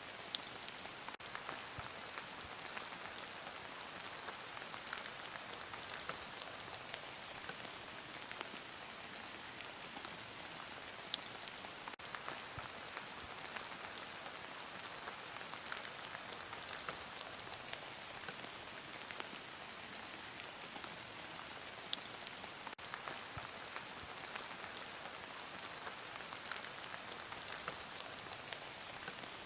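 Heavy rain falling steadily: an even hiss with scattered sharper taps of individual drops.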